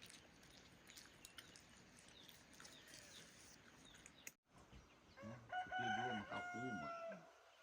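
A rooster crowing once, about five seconds in, one drawn-out crow lasting a second and a half or so; before it only faint ticks and low background.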